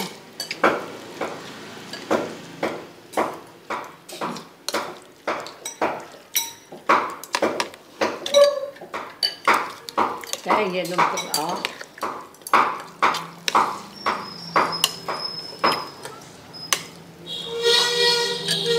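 A metal spoon and fork clinking and scraping against a ceramic plate as a noodle dish is stirred and mixed, in many quick, irregular knocks.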